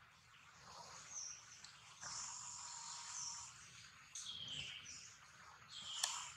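Faint, high-pitched animal squeaks and chirps: several short calls, a longer held call about two seconds in, a falling call about four seconds in, and a sharp click just before the end.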